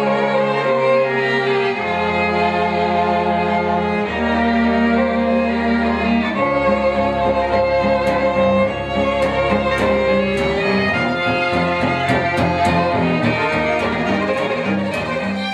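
A small ensemble of cellos plays a slow, calm passage of held chords, the chords changing every second or two. A few light clicks sound in the second half.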